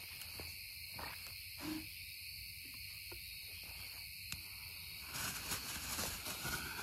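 Night insects chirring steadily and faintly, with a few faint clicks; about five seconds in, a soft rustling noise comes up.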